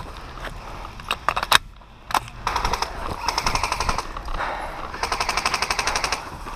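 Airsoft electric rifle (AEG) firing on full auto in two rapid rattling bursts. The first starts about two and a half seconds in and runs over a second; the second is about a second long, near the end. A few sharp clicks come before the first burst.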